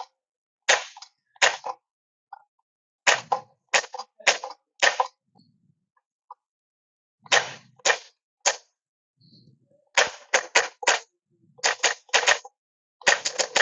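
Salco Rapid 106E electric stapler firing, one sharp clack per stroke, in quick runs of two to four strokes separated by short pauses, about eighteen in all.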